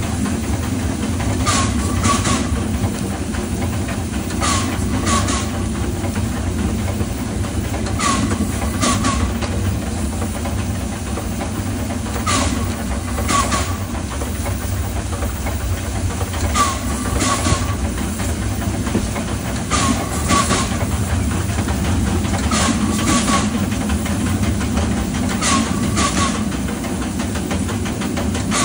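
Steam locomotive C.P E 164 running along the track, a steady low rumble and steam hiss under pairs of sharp wheel clicks over rail joints, one pair about every three to four seconds.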